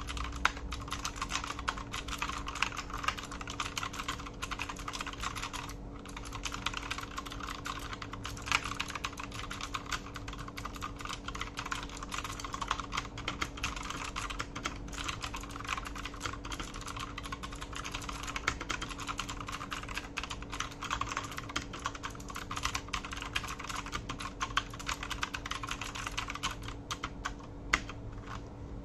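Fast continuous typing on a mechanical keyboard with clicky Akko V2 Blue switches: a dense stream of sharp key clicks, with a brief pause about six seconds in.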